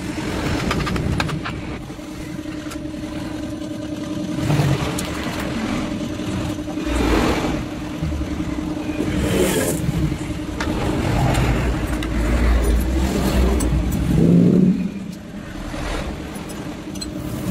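A motor vehicle engine running and revving in the background, with a deep rumble swelling and easing in the middle. Over it come scattered metal clinks of Kawasaki Ninja RR two-stroke engine parts being handled during disassembly.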